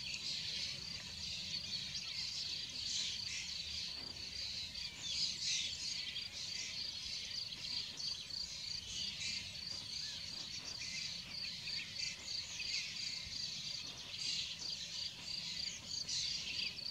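Outdoor birds calling with many short, scratchy high calls, over a steady, fast, high-pitched chirping that repeats several times a second, typical of a cricket or bush-cricket.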